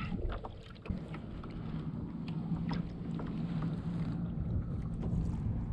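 Water lapping against the hull of a plastic fishing kayak, with scattered small knocks and ticks, over a steady low rumble of wind on the microphone.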